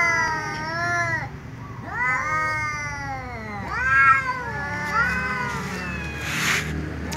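Two cats, a tom and a ginger, meowing loudly back and forth: a string of long, wavering, drawn-out calls, some overlapping. A short hissing burst comes near the end.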